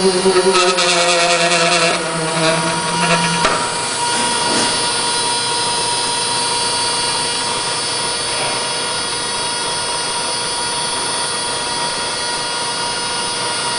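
Goniometer X-axis stage motor whining with a rattling vibration as it drives the axis, a noise the owner blames on a bent plate binding in the middle of the travel. The whine stops about three and a half seconds in, leaving a steady machine hum.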